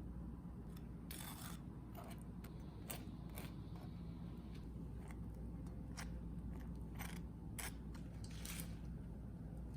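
Scattered light clicks and short scraping rustles, as of small objects being handled, over a low steady hum.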